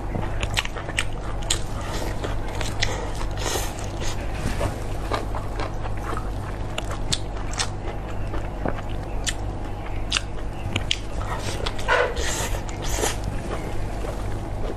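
Close-miked eating: a person biting into and chewing a soft, sauce-coated sausage, with frequent short mouth clicks and smacks and one louder moment about twelve seconds in, over a steady low hum.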